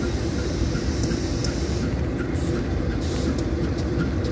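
Diesel-electric freight locomotives moving slowly past, their engines giving a steady low rumble.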